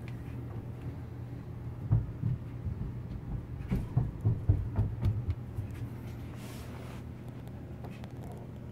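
Steady low hum of a small aquarium pump, with a run of low knocks and bumps between about two and five seconds in from the camera being handled over the tank.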